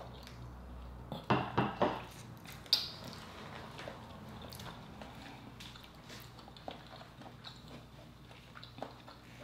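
Close-miked eating sounds of a person chewing lobster and licking her fingers: wet mouth smacks, with a cluster of three louder smacks about a second in and a sharp click shortly after, then small clicks of chewing.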